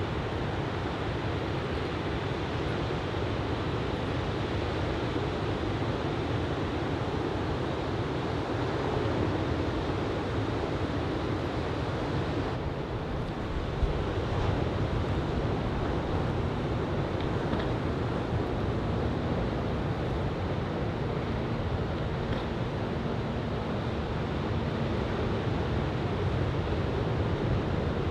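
Shoulder-high typhoon swell breaking on a sandy beach, a steady rushing wash of surf, with wind buffeting the microphone; a brief lull about halfway through is followed by a short knock.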